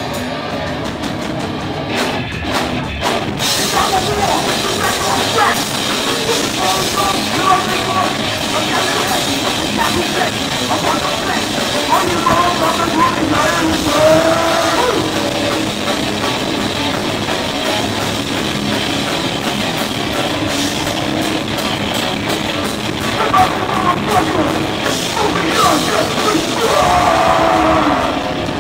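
Hardcore band playing live at full volume: distorted electric guitars, bass guitar and drum kit.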